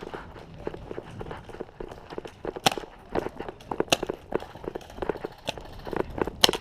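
Quick running footsteps of a paintball player, with a few sharp cracks of paintball markers firing scattered among them.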